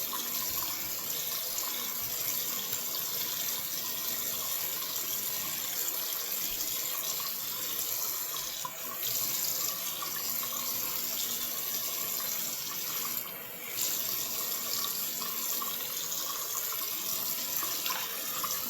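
Tap running steadily into a sink, the flow briefly dipping twice.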